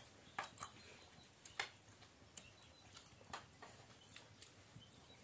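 Faint clinks of metal spoons against a bowl and a plate of rice: about a dozen sharp, irregular clicks.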